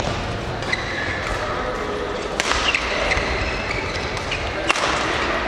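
Badminton rackets striking a shuttlecock in a doubles rally, a sharp crack every second or two, the loudest near the end. Short squeaks from shoes on the court mat fall between the hits, over a murmur of voices in a large sports hall.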